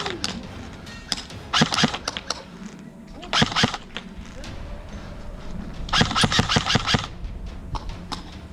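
Airsoft rifles firing on full auto: three short bursts of rapid clicking shots, about a second and a half in, near three and a half seconds, and around six seconds, the last the longest.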